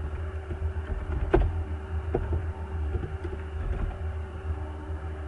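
A few separate computer keyboard keystroke clicks over a steady low hum.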